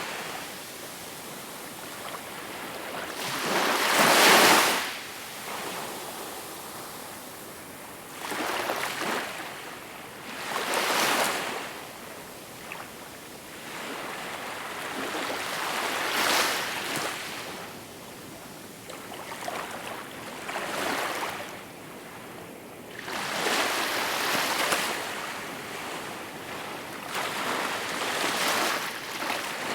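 Small waves washing onto a shore, each one swelling up and falling away every few seconds, the biggest about four seconds in.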